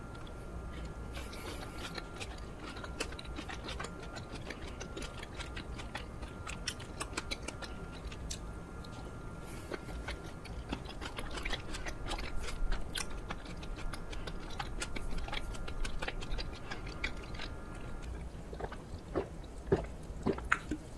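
Close-up wet chewing of soft sticky rice cake (chapssaltteok) filled with juicy green grapes: a steady run of small mouth clicks and squelches. Near the end come a few louder gulps from a drink.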